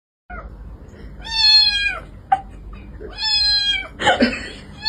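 Domestic cat meowing: two long, loud meows about two seconds apart, with a third starting near the end.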